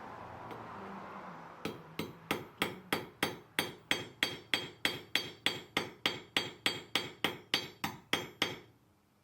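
A steel hammer striking metal on an anvil, about twenty even ringing blows at roughly three a second. A short steady hiss-like noise comes first and fades as the hammering starts.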